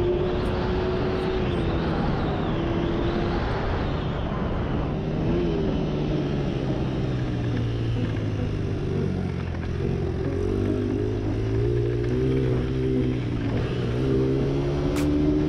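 Dirt bike engine running under way, its pitch rising and falling with the throttle. A rushing wind noise is strongest in the first few seconds.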